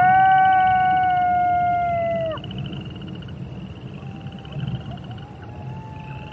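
A wolf howls: one long note that swoops up, holds steady for about two and a half seconds and then falls away, followed by a fainter, lower howl through the second half. A high, pulsing trill runs steadily underneath.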